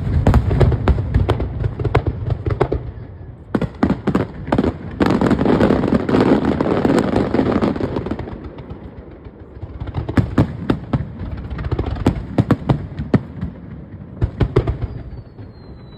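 Aerial fireworks display: repeated sharp bangs of shells bursting, with a dense spell of crackling about five seconds in, then scattered bangs that thin out toward the end.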